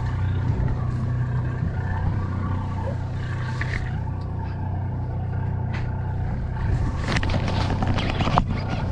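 The party boat's engine running steadily with a low hum, with a few knocks and clatter on deck near the end.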